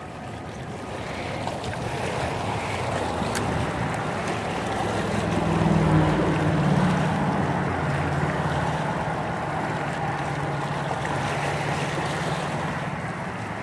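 Small waves lapping and washing against rocks at the water's edge, with wind on the microphone. A low motor hum builds to its loudest about six seconds in, then fades.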